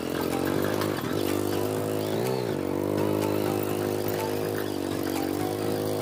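Motorcycle engine running steadily while riding along a dirt track. Its pitch dips and comes back up briefly twice in the first few seconds as the throttle is eased and reopened.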